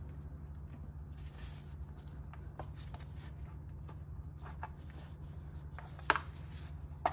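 Faint handling of the upstream oxygen sensor's plastic wiring connector over a steady low hum, with two sharp clicks about a second apart near the end.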